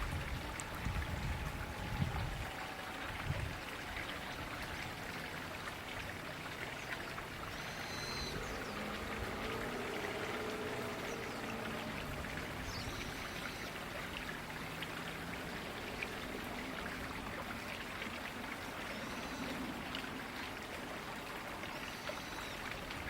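River water running steadily, with a few short high bird chirps now and then and some low thuds in the first three seconds.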